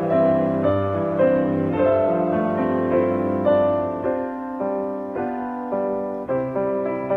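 Background piano music, with melodic notes changing about every half second.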